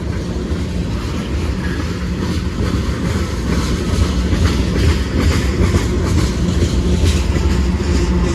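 A long freight train rolling slowly past, with a steady low rumble and irregular clicks and clacks from its wheels over the rail joints, growing slightly louder.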